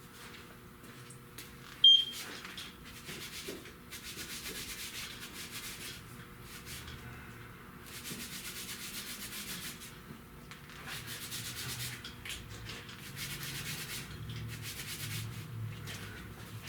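Soapy scuff pad scrubbing a car seat belt, in several long rubbing passes of a couple of seconds each. A single sharp click about two seconds in.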